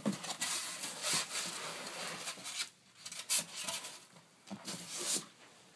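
Rustling and scraping of cardboard packaging being handled and opened, with one sharp click a little over three seconds in.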